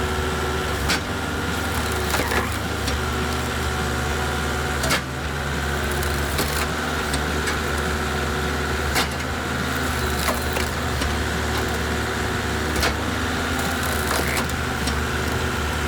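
Hydraulic log splitter running with a steady machine hum, its wedge cracking and splitting logs, with about eight sharp cracks of breaking wood.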